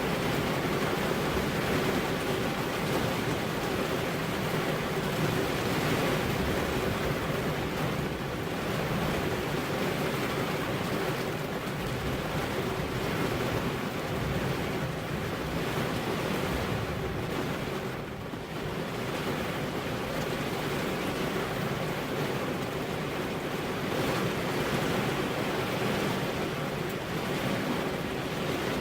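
Steady rainfall, a continuous even hiss with a brief slight lull about two-thirds of the way through.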